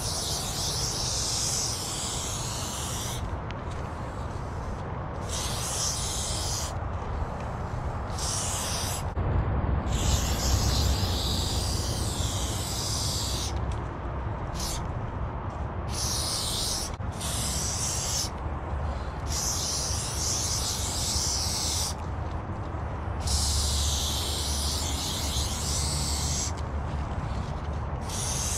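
Aerosol spray-paint can hissing in about ten bursts of one to three seconds each, with short pauses between, as paint is sprayed onto the steel side of a freight wagon. A steady low rumble runs underneath.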